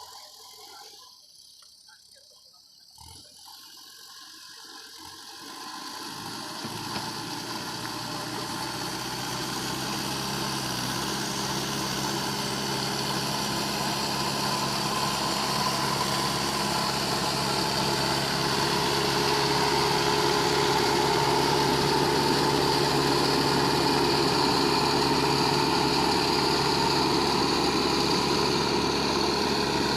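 Diesel engine of a Mahindra Earth Master SX90 backhoe loader running steadily. It is faint for the first few seconds, then grows louder over about a dozen seconds and holds steady.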